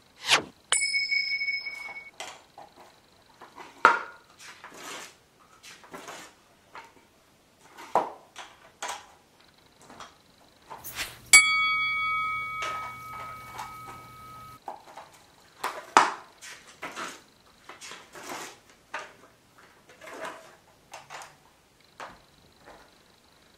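Handy Dandy Notebook prop replica playing short electronic chime sound effects through a small speaker, with a low buzz under the tones. One chime sounds about a second in and a longer one about eleven seconds in. Between them come clicks and rustles of the spiral notebook being handled and its pages turned.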